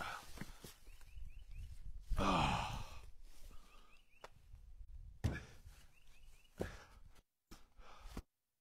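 A man's loud sigh of exertion about two seconds in while handling split firewood, then footsteps in dry leaves and two sharp knocks of firewood a little later. The sound cuts out completely twice near the end.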